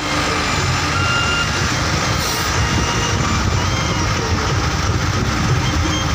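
A vehicle on the move, probably a motorcycle on a ride: loud, steady engine and road noise.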